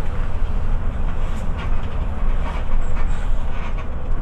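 Diesel engine of an intercity bus running, a steady low rumble.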